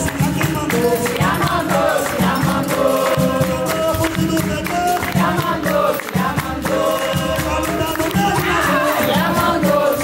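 Live capoeira bateria: berimbaus and an atabaque drum playing a steady rhythm while the circle sings the chorus together and claps along.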